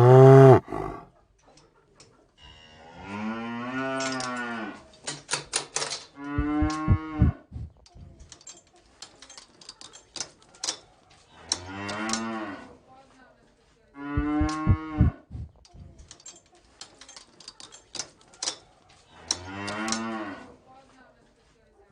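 Domestic cows mooing, about six separate drawn-out moos a few seconds apart, each rising and then falling in pitch. Between the moos come bursts of sharp clicking.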